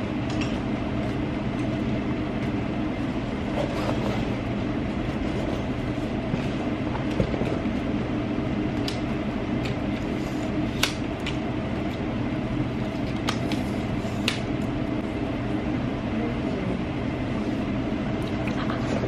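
Steady mechanical hum of a ceiling fan running, with a few sharp clicks from a tripod's legs and locks being handled and extended.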